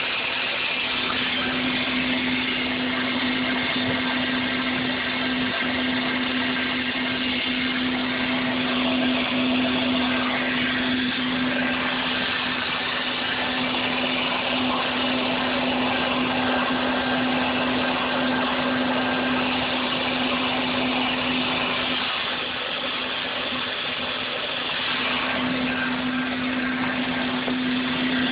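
Mountain Goat mini trommel running: a steady motor hum from its drive, with water and washed gravel sloshing and rattling through the turning drum.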